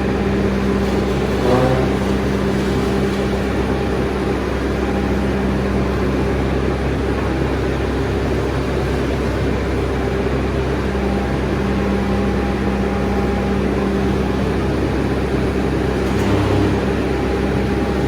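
Bobcat S650 skid steer's diesel engine running steadily.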